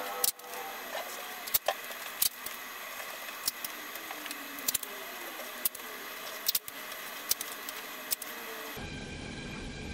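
Masking tape being pulled, torn and pressed on around a car headlight: sharp clicks and crackles about once a second over a low hiss. Near the end the background changes abruptly to a duller hum.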